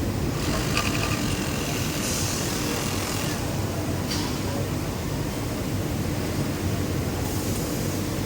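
Steady mechanical din of industrial sewing machines running on a garment factory floor, with a few short bursts of hiss.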